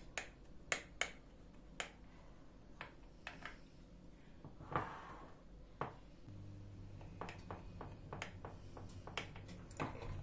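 Kitchen knife cutting a soft, coconut-topped sponge dessert in a glass baking dish: a string of sharp, irregular clicks as the blade knocks against the glass, with one longer scrape near the middle. A faint low hum comes in about six seconds in.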